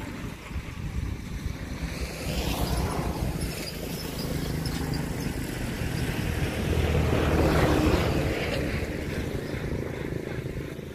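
A motor engine running steadily, growing louder about two seconds in and again around seven to eight seconds before easing off.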